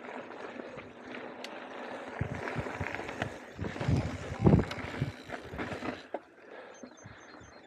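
Mountain bike rolling over a dirt singletrack: tyre noise with frequent knocks and rattles as it rides over bumps, one heavier thump about four and a half seconds in. The riding noise quietens about six seconds in.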